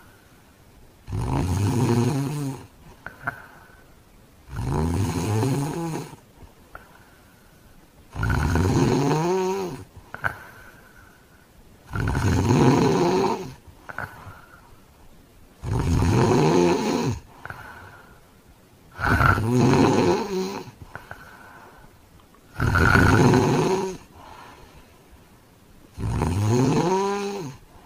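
A man snoring heavily in his sleep: eight loud, rattling snores, each about a second and a half long, coming regularly about every three and a half seconds, with a brief faint whistle of breath in the gaps between them.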